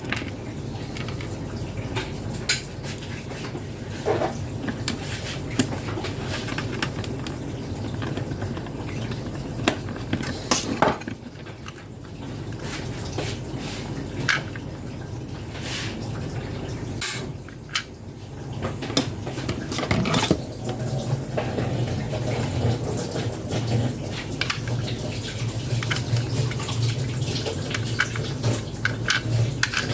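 Irregular clicks and clinks of small hard objects being handled, over a steady low hum that grows stronger about two-thirds of the way through.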